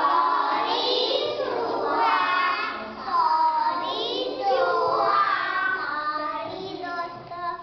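A group of young children singing together in unison, stopping just before the end.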